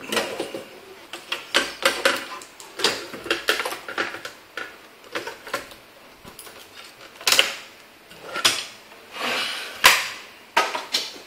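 Irregular clicks, knocks and scrapes of a dismantled LCD monitor being handled: the empty plastic front bezel and the metal-backed LCD panel knocking and sliding as they are moved on the bench, with a short scrape a little before the end.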